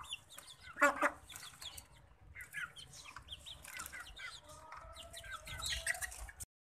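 Hens clucking and chirping in many short, quick calls as they crowd around to drink, with one louder burst about a second in. The sound cuts off suddenly near the end.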